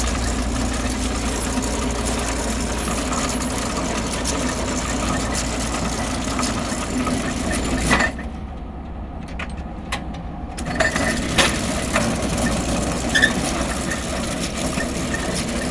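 Water well drilling rig running steadily with a low engine hum and scattered sharp knocks. The sound drops away abruptly about eight seconds in and comes back two to three seconds later.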